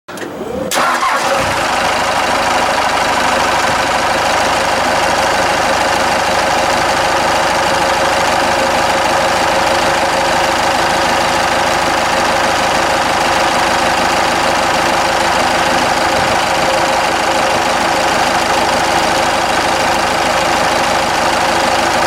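Cummins turbo-diesel engine catching at the very start, its pitch rising briefly, then settling into a steady idle, running with its exhaust manifold gasket just replaced.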